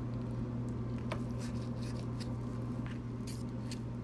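A fork and knife clicking and scraping on a plate a few times, over a steady low hum.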